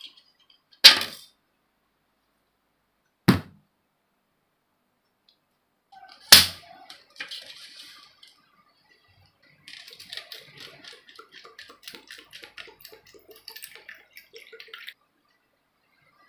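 Three sharp knocks of things set down on a hard surface, then water poured into a small plastic bowl for about five seconds, gurgling in quick repeated pulses.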